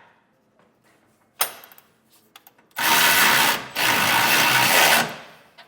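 A power tool running in two bursts of about a second each, after a single click.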